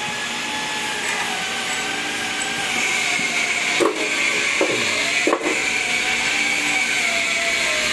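A motor-driven machine running steadily, its hum wavering slowly in pitch, with two sharp knocks, the first about four seconds in and the second about a second and a half later.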